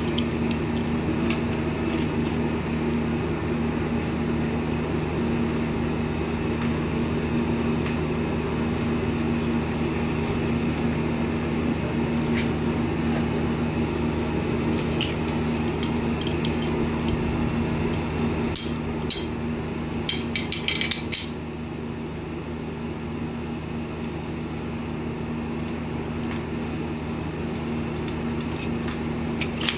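Steady background hum, with a short cluster of sharp metal clinks about two-thirds of the way through, as a flaring tool is worked on the quarter-inch copper pipe of a split air conditioner.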